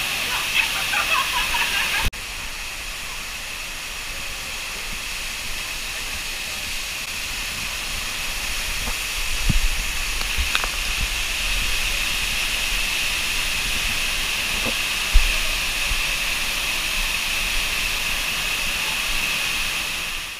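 Steady hiss of water spray and fog-effect mist. The level drops abruptly about two seconds in, and a few soft thumps come later.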